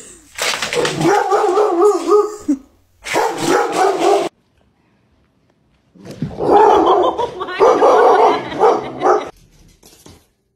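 Dogs barking in two runs of a few seconds each, with a short silence between them.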